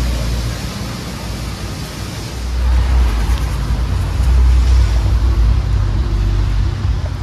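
Street traffic on rain-soaked pavement: the steady hiss of tyres on wet road, with a low rumble that grows louder about two and a half seconds in.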